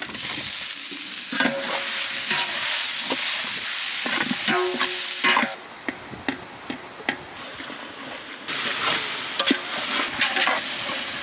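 Tomatoes, onions and herbs frying in oil in a large aluminium pot, sizzling steadily while a long metal ladle stirs and scrapes against the pot. About halfway through the sizzle drops back, leaving the ladle's scrapes and knocks, then it rises again near the end.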